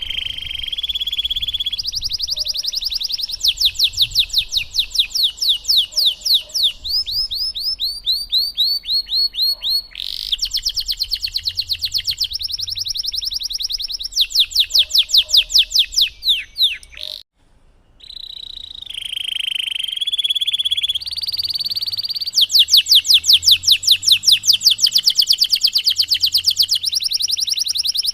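Domestic canary singing a long, elaborate song of fast rolling trills, each phrase a rapid run of repeated high notes, switching from one trill to the next every second or two. The song breaks off for a moment about seventeen seconds in, then starts again.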